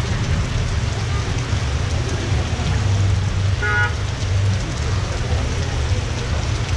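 Heavy rain pouring onto a street and an awning, with cars driving slowly over the wet road. A car horn toots once, briefly, about midway.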